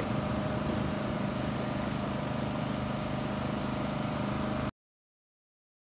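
Small engines idling steadily in a constant hum that cuts off abruptly near the end.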